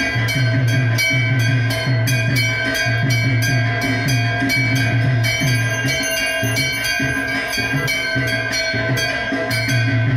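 Bells ringing quickly in a steady rhythm, about four strikes a second, over a continuous drum beat, as in Hindu temple aarti worship.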